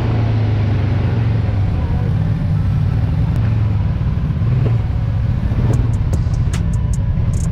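ATV engine running steadily as the quad rides along a muddy trail, with scattered sharp ticks that come more often in the second half.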